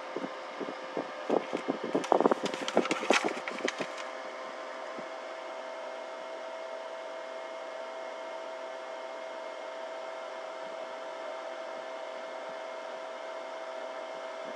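Paper crackling and rustling as an instruction manual is handled, a quick run of sharp crackles and clicks lasting about four seconds. After that it stops and only a steady background hum with a faint pair of steady tones remains.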